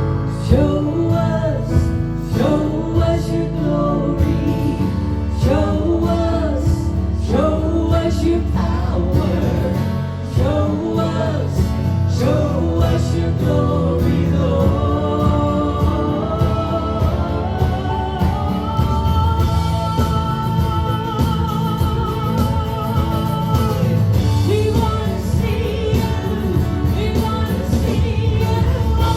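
Live worship band music with singing: band playing under voices that swoop through short repeated phrases, then hold long notes in the second half.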